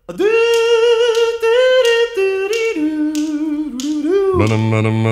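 Background music: a cappella vocal group humming a held harmony over finger snaps about twice a second, with a low bass voice coming in near the end.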